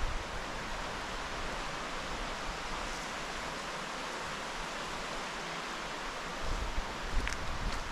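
Steady, even rushing hiss of the outdoors, with soft footsteps on the trail starting again near the end.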